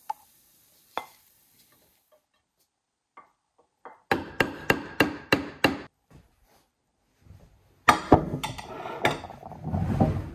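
Kitchen knife chopping green onions on a wooden cutting board: a quick run of about eight sharp strokes at roughly four a second, then a few more knocks with some clatter near the end.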